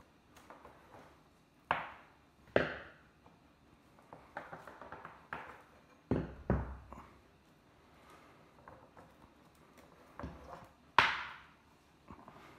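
Three-strand rope being hand-spliced: the strands rustle and crackle as they are tucked and pulled tight, with several sharp knocks on the wooden tabletop, the loudest near the end.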